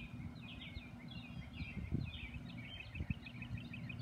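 Small birds chirping with short high calls, running into a quick string of chirps in the second half, over a low steady rumble. Two soft low thumps stand out about two and three seconds in.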